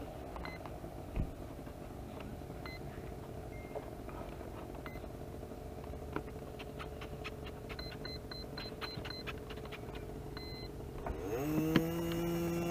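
Short, high electronic beeps come singly here and there, with a quick run of about six beeps some eight seconds in, over light handling clicks. Near the end a model aircraft motor briefly runs up to a steady pitch and then winds down.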